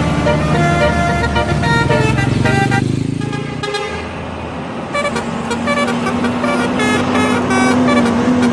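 Bus 'telolet' horn playing a quick melody of short notes at shifting pitches over the running bus engine. The horn pauses about three to four seconds in, then starts again with another run of notes.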